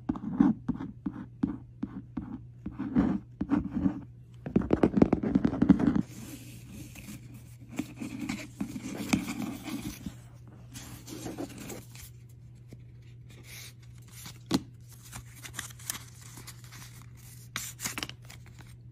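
Packaging being opened and handled by hand: a busy run of short crinkles, clicks and rustles, loudest over the first six seconds and sparser after, over a steady low hum.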